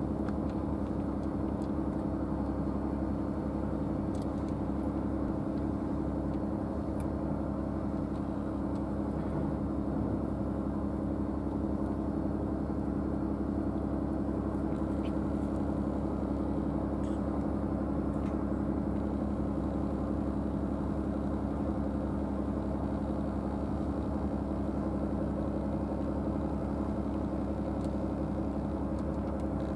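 Steady low drone of an idling engine, unchanging in level, with a few faint clicks over it.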